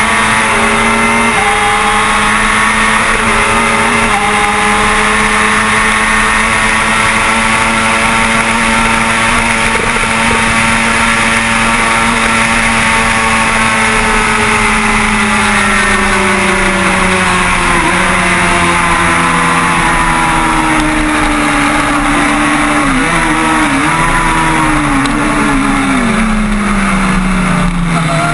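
Kawasaki ZX-6R 636 inline-four engine at high revs under wind rush, on board the motorcycle. About halfway through, the engine note starts falling steadily as the bike slows, with a few short wobbles. It bottoms out just before the end and begins to rise again.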